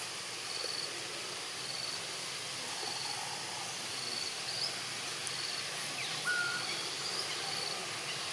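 Forest ambience: a steady hiss of insects with a short, high call repeating about once a second, and one brief whistle-like call about six seconds in.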